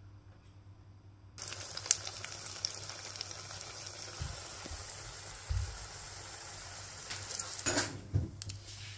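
A breadcrumb-coated egg frying in hot oil in a pan: a steady sizzle that starts suddenly about one and a half seconds in. Near the end the sizzle gives way to a few short knocks.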